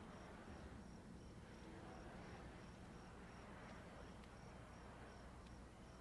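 Faint cricket chirping, a steady run of short high chirps about three a second, over a low background hum.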